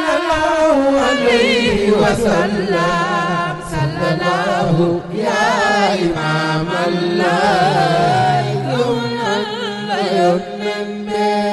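Devotional chanting: voices sing wavering, ornamented melodic lines over a steady low held note, without a break.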